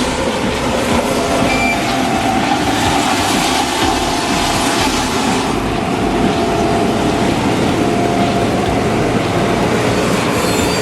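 A vehicle running steadily, a loud continuous mechanical rumble with no breaks.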